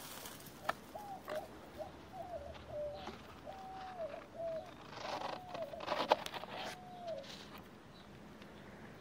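A dove cooing, a run of short low hooting notes. About five seconds in, leaves and twigs rustle and snap as the cats shift in the branches, with one sharp click the loudest sound.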